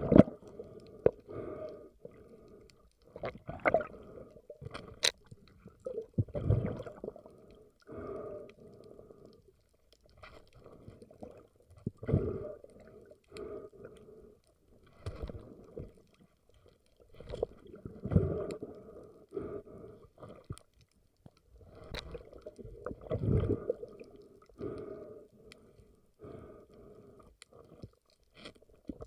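Muffled water sounds around a spearfishing diver's camera, swelling and fading about every five to six seconds, with scattered sharp clicks between them.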